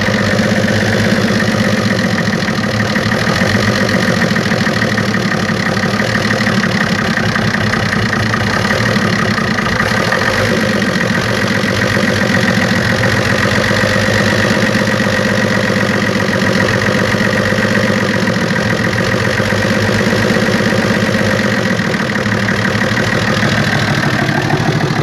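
FNM 180 truck's diesel engine idling steadily after years of sitting. It holds its idle but won't take throttle, which the owner puts down to fuel filters that need changing.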